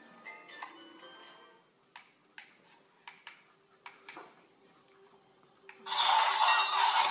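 Transforming Bumblebee remote-control toy car: short electronic blips and scattered sharp ticks, then about six seconds in a loud burst of sound effects from its speaker as it begins to transform into a robot.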